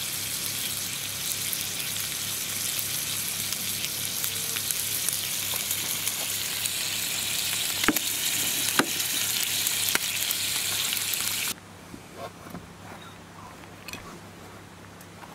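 Steady hiss of rushing mountain-stream water, with a couple of sharp clicks partway through. It cuts off abruptly a little before the end, leaving a much quieter background with a few small clicks.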